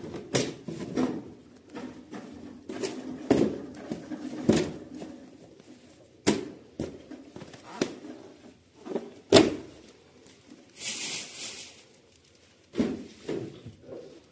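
Knocks, thuds and clatter of food containers, drawers and shelves being handled and set down, a few seconds apart. A brief hiss comes about eleven seconds in.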